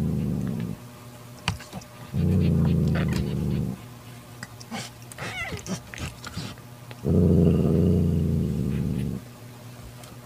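Calico mother cat growling low in long, drawn-out growls of about a second and a half to two seconds each, three times, with quieter pauses between while she hunches over her newborn kitten.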